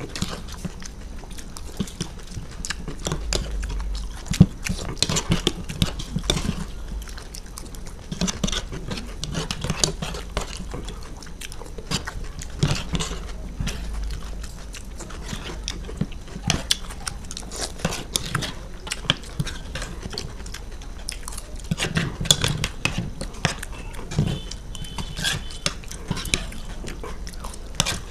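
Two people eating ghugni, a soft spiced pea curry, close to a table microphone: chewing and mouth noises, with spoons clicking and scraping against their plates at irregular moments.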